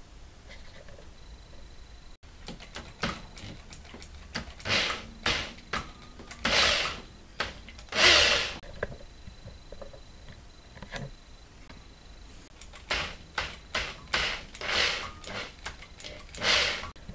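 Power drill run at low speed in a series of short bursts, winding thin steel cable wire around a drill bit as a mandrel to form a small coil spring. The bursts come in two clusters with a lull in the middle.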